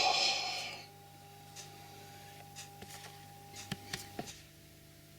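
Light clicks and taps of metal parts being handled while the homemade knurling tool is put together, after a louder scraping, rustling noise that fades out within the first second. A faint steady hum stops about four seconds in.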